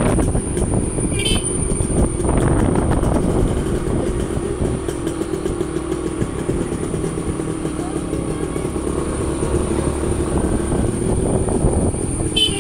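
Suzuki Samurai motorcycle's small two-stroke single-cylinder engine running as the bike rides along, loudest at the start, fading a little in the middle and growing louder again near the end as it comes closer.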